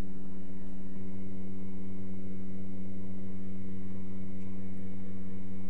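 Steady low electrical hum with several even pitches over a faint hiss, unchanging throughout: background noise of the recording setup.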